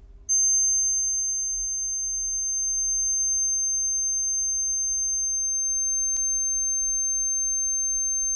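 A steady, pure 6.3 kHz test tone from a Subaru Sambar kei truck's door speaker. About six seconds in there is a single click, where the playback switches from the untreated door to the door treated with sound-deadening material.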